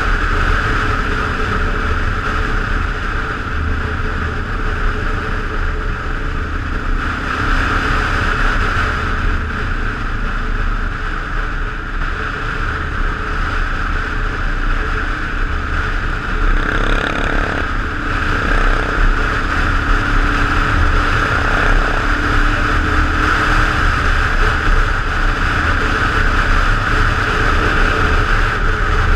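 Single-cylinder dual-sport motorcycle exhaust running steadily at riding speed, heard over constant wind rush.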